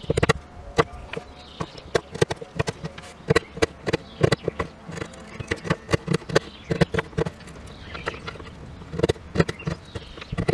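Wood chisel cutting out a notch in a hardwood countertop slat: a string of irregular sharp knocks and cracks as the blade bites and splits off the fibres.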